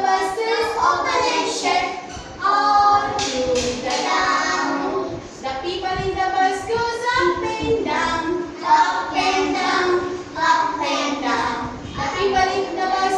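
A group of young children singing a rhyme together, in a chanting, sing-song way with some held notes.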